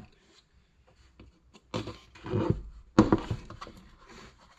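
Plastic scraping and knocking as a windshield washer pump is worked loose from the washer fluid reservoir, with one sharp click about three seconds in as the pump snaps free of its detent.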